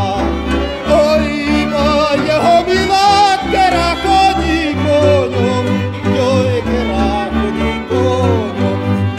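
Fiddle-led folk string music, the violins playing a wavering melody over sustained bass notes.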